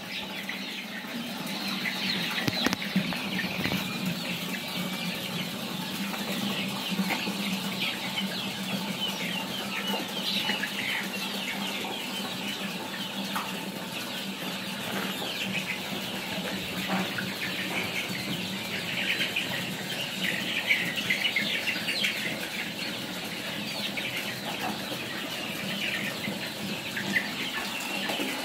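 A flock of young country chickens (nati koli) and chicks calling together, a continuous chatter of many overlapping short, high peeps and clucks, over a steady low hum.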